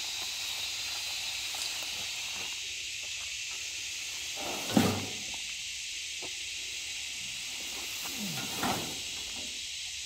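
Steady high-pitched insect chorus, with a single loud thump about five seconds in as an armload of harvested sweet potato vines is dropped into a utility vehicle's cargo bed, and softer rustling of the leafy vines near the end.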